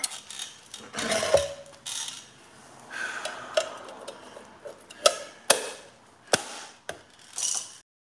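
A wheel center cap being fitted back onto a truck's chrome wheel: handling and scraping noises, then several sharp clicks and knocks in the second half as it is pressed and snapped into place.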